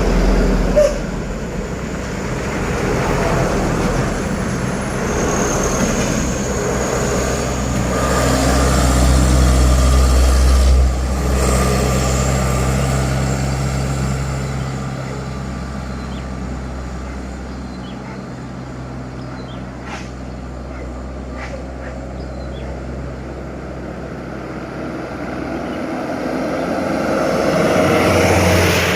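Heavy diesel trucks passing on a highway, their engines droning low and steady. The sound is loudest about a third of the way in, dies away through the middle, and builds again near the end as another vehicle approaches.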